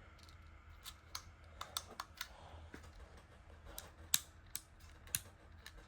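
Sliders and buttons on a plastic fidget pad being worked by fingers: scattered light clicks at an irregular pace, the sharpest about four seconds in.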